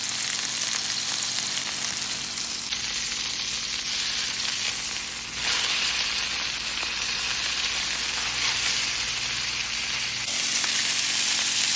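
Pork chops sizzling as they sear in a hot frying pan: a steady, dense hiss that shifts abruptly a few times and is louder for the last second or so.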